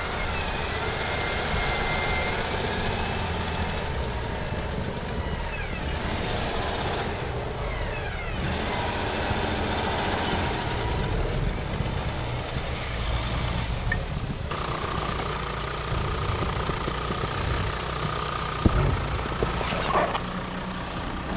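Off-road SUV engines running and revving under load while a car stuck in deep snow is pulled out on a tow strap. The pitch rises and falls several times, and a steady whine holds through the last third.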